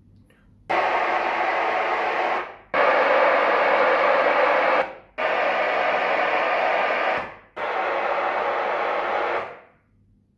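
AV receiver's level-calibration test noise played through the home theatre speakers one channel at a time: four bursts of steady hiss of about two seconds each, with short gaps as it steps from speaker to speaker.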